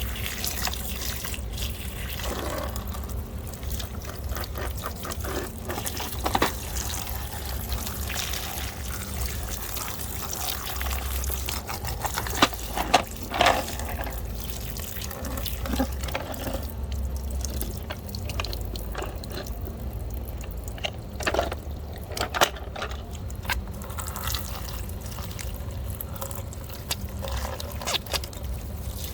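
Water dripping and splashing as muddy toy vehicles are washed, with scattered sharp knocks, loudest about twelve seconds in and again about twenty-one seconds in, over a steady low hum.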